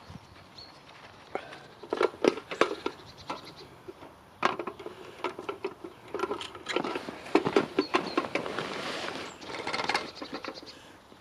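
Irregular slaps and rustling of a wet carp weigh sling with a carp inside, handled for weighing, from about two seconds in to near the end.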